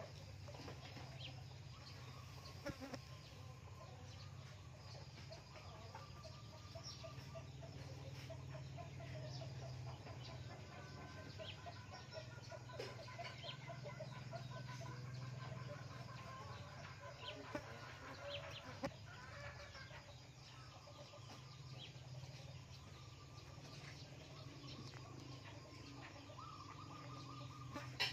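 Faint runs of short, rapidly repeated bird calls over a low steady hum, with a few scattered clicks.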